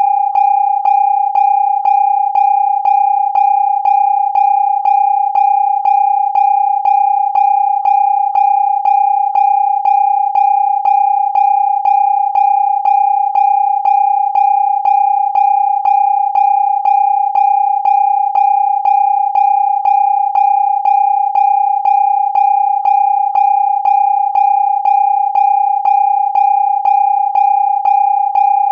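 Electronic siren holding one steady high tone without rising or falling, cut by a sharp, regular pulse a few times a second.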